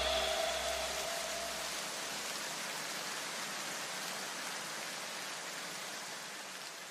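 A faint, even hiss that slowly fades out, with a faint tone dying away in the first second or two.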